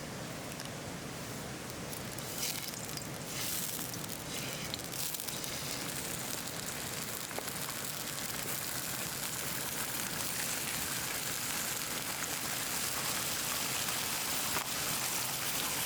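Steady hiss of heavy rain, growing slowly louder, with a few brief swells about two to three seconds in.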